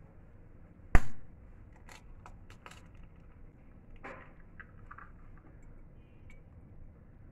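An egg cracked sharply against the rim of a bowl about a second in, followed by a few soft clicks of the eggshell as the white is separated into the bowl.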